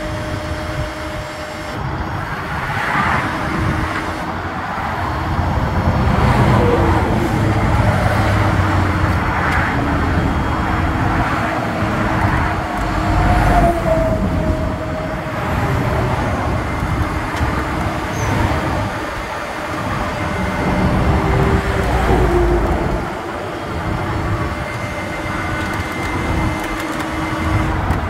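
Highway traffic passing close by: a loud rush of vehicles, swelling and fading every few seconds as heavy vehicles go past, over a faint steady hum.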